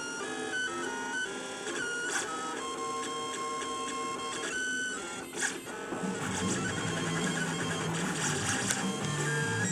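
FDM 3D printer printing, its stepper motors whining in steady tones that jump in pitch as the print head changes its moves. From about six seconds in, a lower, busier hum joins them.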